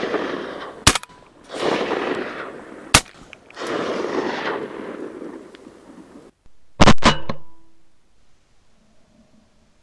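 Two shotgun shots fired in quick succession about seven seconds in, each a sharp, very loud report with a short ring after. Before them come bursts of rustling and a few sharp clicks.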